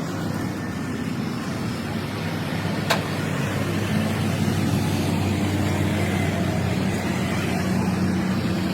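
A steady engine-like running with a low hum, and a single sharp click about three seconds in.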